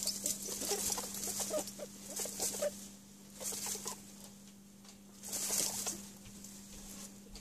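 Baby French Angora rabbits squeaking and stirring in their nest of fur and hay: short squeaks through the first two seconds or so, with bursts of rustling bedding a few times. A faint steady hum runs underneath.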